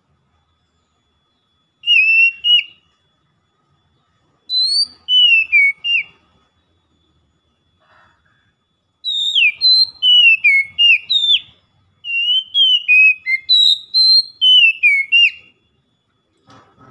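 Oriental magpie-robin singing loud, clear whistled phrases of quick down-slurred notes. The song comes in four bursts with short pauses between them, and the later bursts are longer and more rapid.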